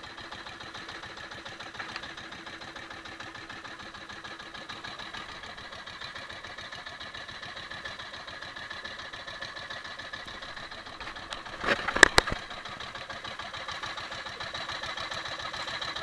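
Small outrigger fishing boat's engine idling steadily, a low even hum with a faint whine. A few sharp knocks about twelve seconds in.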